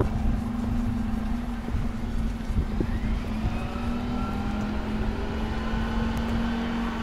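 A motor vehicle engine running at a steady pitch over a low rumble.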